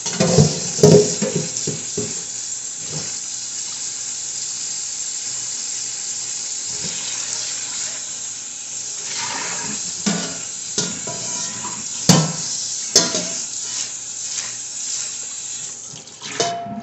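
Kitchen faucet running steadily into the sink, with a few knocks and clatters of a pan; the water shuts off near the end.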